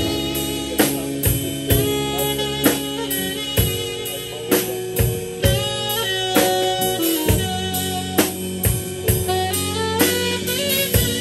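Live worship band playing an instrumental passage: a saxophone melody over drum kit and electric bass, with a steady beat.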